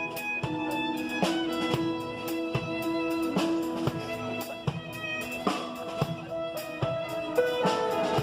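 Instrumental wedding music: a violin-led melody over a drum kit keeping a steady beat.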